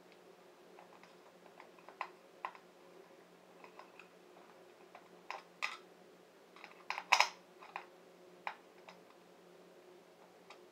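Scattered small clicks and taps of small hardware being handled while the timing belt is clamped to the Y-axis carriage of a RepRap 3D printer, with the loudest cluster of clicks about seven seconds in.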